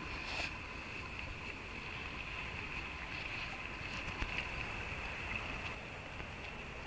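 Shallow stream water running steadily, with a few faint ticks over it.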